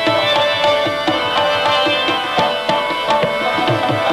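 Instrumental break in a Pashto song: tabla drumming in a steady rhythm under a melody of held notes, with no voice.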